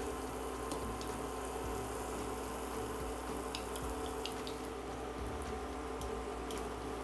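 Yeast pancakes frying in a generous layer of hot sunflower oil: a steady sizzle with a few sharp spatter crackles, clustered about three and a half to four and a half seconds in and again near six seconds.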